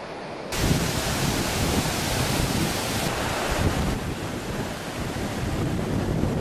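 Fast-flowing floodwater rushing across a road, a steady loud noise of water starting suddenly about half a second in, after a quieter stretch of wind noise.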